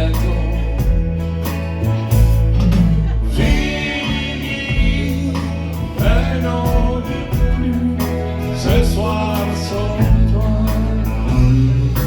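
Live band playing music, with a steady bass line, drums and cymbal strikes in a regular beat, and a melody line held over them.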